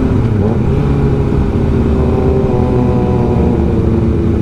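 Kawasaki ZX-6R's inline-four engine running at a steady cruising speed while riding, its pitch holding fairly level.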